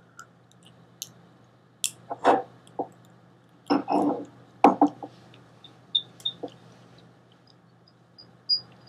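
A hand handling and sliding across sheets of paper: scattered short rustles and taps at irregular moments, over a faint steady electrical hum.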